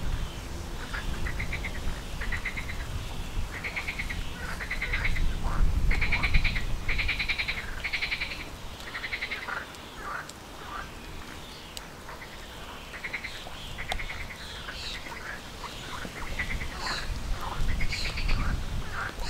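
Mute swan cygnets peeping: a long run of short, high calls, repeated many times with brief gaps, busiest in the middle and again near the end, over a low rumble.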